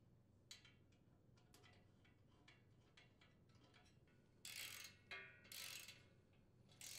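Ratchet wrench clicking faintly as it tightens the muffler flange bolts on a small generator engine: scattered single clicks at first, then three short bursts of ratcheting in the last two and a half seconds.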